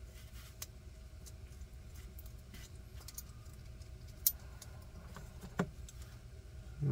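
Faint clicks and taps of metal parts as a Hogue Deka folding knife is handled and worked open, the sharpest click about four seconds in, over a faint steady low hum.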